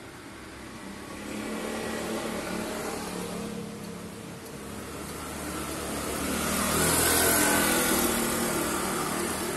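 Motor vehicles passing by. One engine swells and fades over the first few seconds, then a louder one rises to a peak about seven seconds in and fades away.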